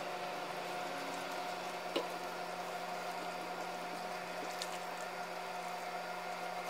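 Vinegar-and-pepper barbecue sauce poured steadily from a saucepan onto pulled pork in a skillet, a soft even liquid pour with one light click about two seconds in.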